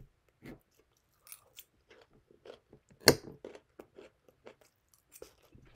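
A person chewing and biting crunchy food close to the microphone: irregular crunches and clicks, the loudest about three seconds in and another right at the end.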